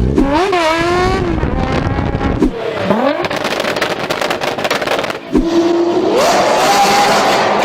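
Loud performance engines through free-flowing exhausts: a few sharp blips of revs rising and falling, then a rapid crackling stretch, then an engine note that holds and climbs in pitch as it accelerates.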